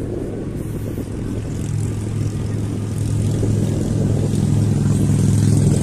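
A steady low motor hum that grows slowly louder, over an even rushing noise.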